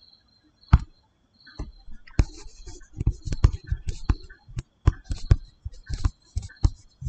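Stylus tapping and scratching on a tablet screen while handwriting: one sharp tap about three-quarters of a second in, then from about two seconds in a busy, irregular run of taps, several a second, as letters are written.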